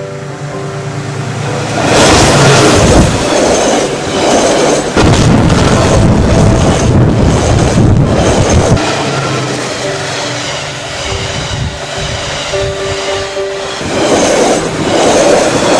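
Diesel locomotive and passenger carriages passing close by on the rails, loud: the rush of the train builds over the first two seconds, with the clickety-clack of wheels over the rail joints, eases a little in the middle and peaks again near the end as the last carriages go by.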